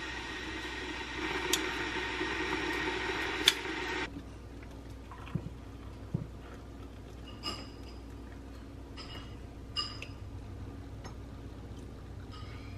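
Electric kettle heating toward the boil with a steady rushing hiss, a sharp click about three and a half seconds in, then the sound cuts off suddenly. After that, hot water is poured quietly into ceramic mugs, with a few light clinks of mug and spoon.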